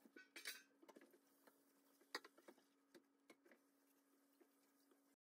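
Faint, scattered clicks and soft taps of a silicone pastry brush glazing raw dough rolls on a metal baking tray, over a faint steady hum. The sharpest clicks come about half a second and about two seconds in.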